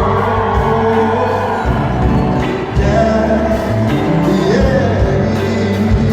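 Live pop band playing with a singing voice carrying the melody over it.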